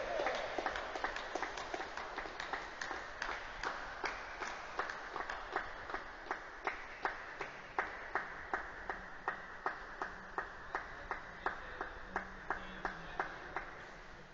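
Steady rhythmic clapping from spectators at a tennis match, about three claps a second, growing fainter near the end.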